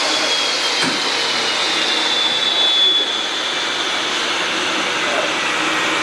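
A small electric motor running steadily, with a high whine that slowly drops in pitch and a single knock about a second in.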